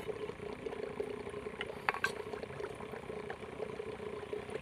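A small engine running steadily with an even hum, and a couple of faint clicks about two seconds in.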